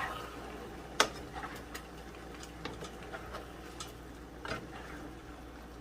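A cooking utensil knocking and clinking against a pot: one sharp clink about a second in, then lighter scattered clicks.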